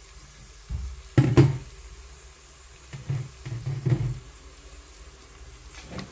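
Onions and spices frying in a Tefal CY505E40 multicooker's inner pot with a faint steady sizzle, broken by a few dull knocks, the loudest about a second in and more around three to four seconds in.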